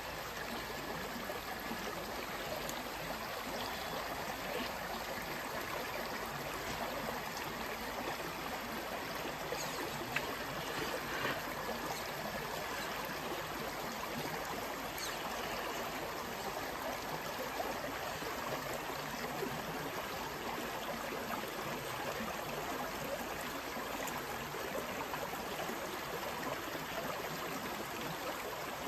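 Fast-flowing creek water rushing steadily over rocks.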